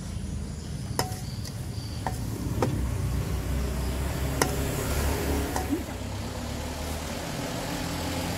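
Metal spoon knocking and scraping in a stainless steel bowl while rujak is tossed in its sauce, with about five sharp clinks over the first six seconds. A steady low rumble runs underneath.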